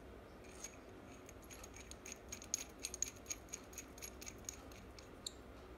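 Faint light metallic clicks and ticks of a brass fitting knocking against an aluminium oil filter sandwich adapter as it is screwed in by hand: a quick irregular run of them for about four seconds, then one short ringing tick near the end.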